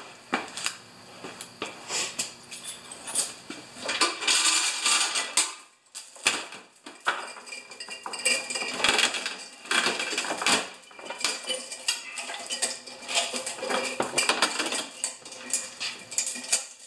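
Steel chain rattling and clinking as it is pulled link by link from around a metal toolbox and gathered up by hand. It comes in irregular spells, with a brief pause about six seconds in.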